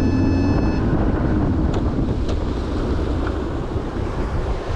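Bass boat under way: wind buffeting the microphone over the rumble of the hull on the water and the outboard motor. The motor's steady hum stops about a second in, and the rush of wind and water slowly eases.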